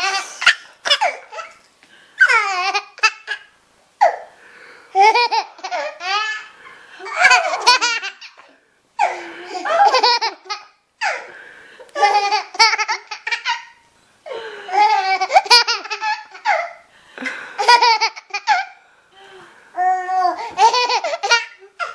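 A baby laughing in repeated high-pitched fits of belly laughter, each bout a quick run of chopped "ha" sounds, with short pauses between the bouts.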